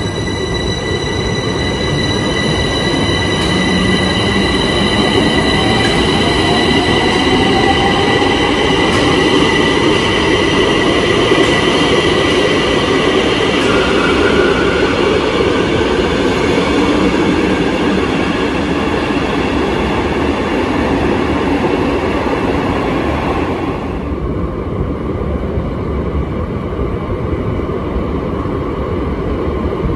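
Bombardier metro train running at the platform: a dense rumble under steady high electric whines, with a thinner motor whine rising in pitch as the train gathers speed. About three quarters of the way through, the high whines cut off suddenly and the lower rumble carries on.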